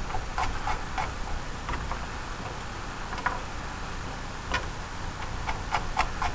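Chef's knife chopping garlic cloves on a wooden cutting board: a quick run of sharp knocks at first, then scattered single knocks, and a few more close together near the end.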